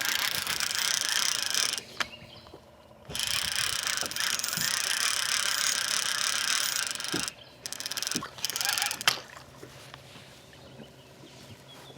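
Fishing reel cranked fast, a dense clicking whir in two long spells with a short break between, stopping about seven seconds in. The reel is retrieving a hooked crappie taken while trolling crankbaits.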